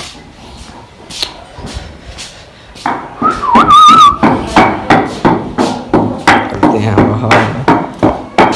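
A person whistling a short wavering note about three seconds in. It is followed by a run of loud, quick, regular knocks, about three a second, with voice sounds mixed in.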